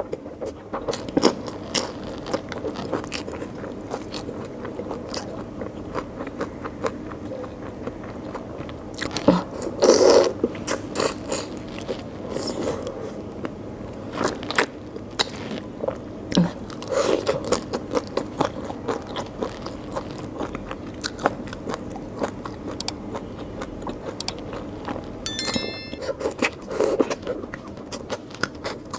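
Close-miked eating by hand: chewing and biting into curried prawns and rice, with frequent small crunches and wet clicks and a louder bite about ten seconds in.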